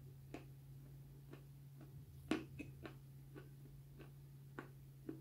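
Crunchy, dry white pieces being chewed, giving short, sharp crunches about twice a second, with the loudest a little over two seconds in. A steady low hum runs underneath.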